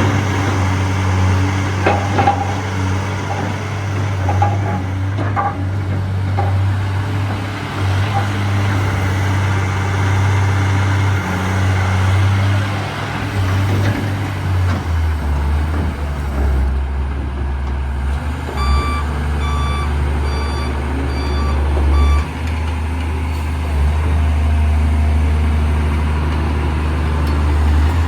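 John Deere excavator's diesel engine running steadily, dropping to a lower speed about halfway through. A little later a travel alarm sounds a run of short beeps, about two a second, for some three seconds.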